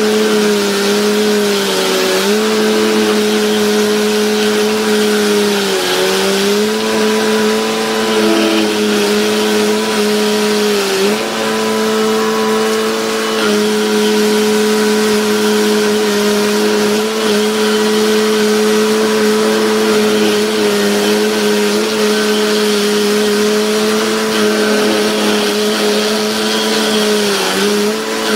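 Stump grinder's engine running at high speed while the toothed cutter wheel chews through a wood stump, with a steady hum and a grinding rasp on top. The engine note dips briefly about four times as the wheel bites into the wood under load.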